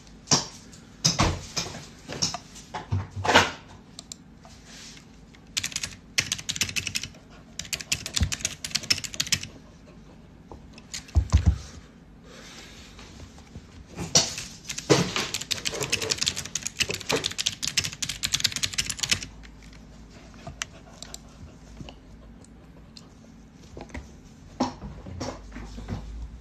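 Typing on a computer keyboard: quick runs of key clicks in several bursts with short pauses between them.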